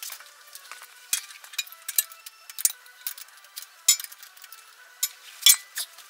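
Wrench and socket clicking and clinking on steel bolts: irregular sharp metallic clicks, a few of them louder.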